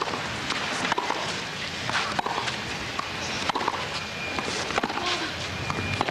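Tennis rally: a ball struck back and forth by rackets, several sharp hits at uneven intervals over steady background noise.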